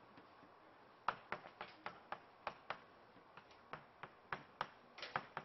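Chalk tapping and clicking on a chalkboard as writing is done: a quick, irregular run of sharp taps starting about a second in.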